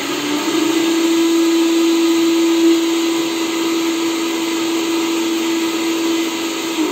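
Countertop blender motor running steadily at full speed, liquidising mint and boldo leaves in water, with a steady hum over a hiss. Right at the end it is switched off and the hum begins to fall as the motor spins down.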